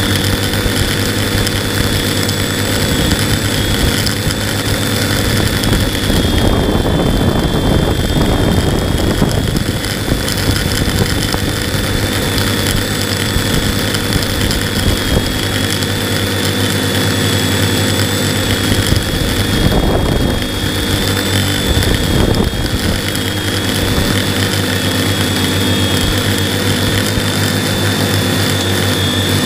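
A multirotor drone's motors and propellers buzz steadily with a thin high whine. Twice there are a few seconds of rushing noise.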